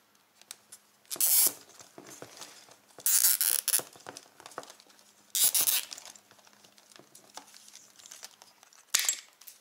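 Nylon zip ties being pulled tight through their ratchet heads: three quick zipping rasps a couple of seconds apart, another near the end, with light handling clicks between.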